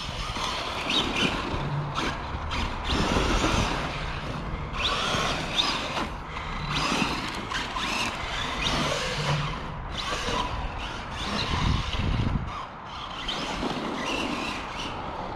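Arrma Big Rock 3S RC monster truck driven hard over loose dirt: its brushless motor whines up and down with the throttle while the tyres scrabble and slide in the dirt.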